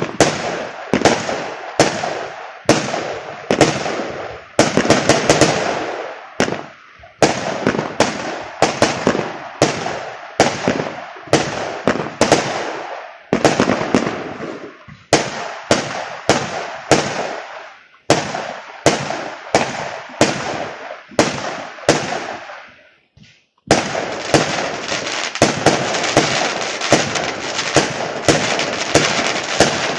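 Aerial fireworks going off in a quick series of sharp bangs, roughly one or two a second, each trailing off in crackle. After a short lull about 23 seconds in, a dense run of crackling bangs fills the rest.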